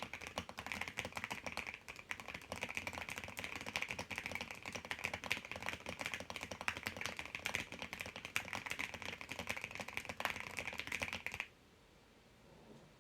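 Fast, continuous typing on a custom mechanical keyboard with lubed, filmed Alpaca linear switches, a polycarbonate plate and thick ABS MT3 keycaps, giving a dense run of muted key clacks. The typing stops abruptly about eleven and a half seconds in.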